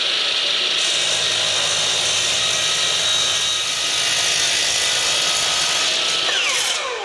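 Makita 12-inch sliding compound miter saw cutting 6061 aluminum stock, its motor running at a steady high whine over the loud rasp of the blade. Near the end the motor is switched off and winds down with a falling whine.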